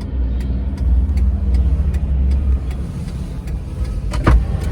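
Steady low rumble of a car's engine and road noise while driving, with a short sharp knock near the end.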